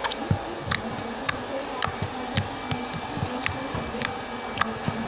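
Slime being squeezed and worked in the hands, making a run of sharp clicks and pops about two a second over a steady background hiss.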